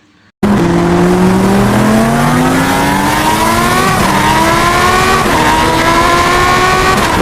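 Racing motorcycle engine accelerating hard, its pitch climbing steadily and dipping briefly at two gear changes, about four and five seconds in.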